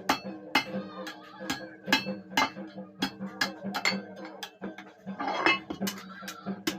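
Hammer blows on scrap iron, ringing metallic strikes at about two a second, with background music under them.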